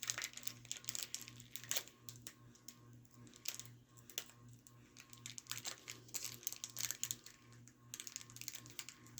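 Foil trading-card booster pack wrapper crinkling and crackling as it is handled and pulled at to open it, in a run of sharp, irregular little crackles.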